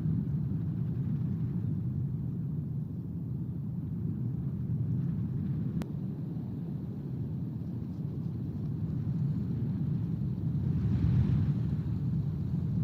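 Wind buffeting the nest camera's microphone: a steady low rumble that swells into a stronger gust about eleven seconds in.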